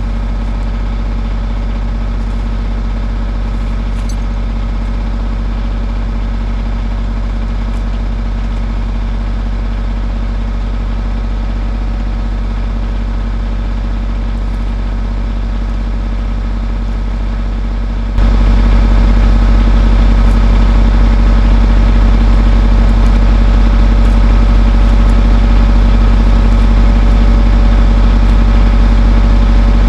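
Skid steer engine running steadily close up, an even drone with a steady pitch. About eighteen seconds in it abruptly gets louder and stays that way.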